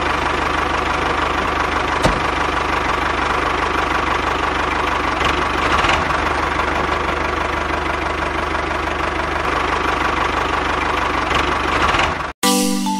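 Miniature DIY toy tractor's small motor and drive gears running steadily as it drives, with a single click about two seconds in. The running cuts off suddenly near the end and a xylophone-like melody begins.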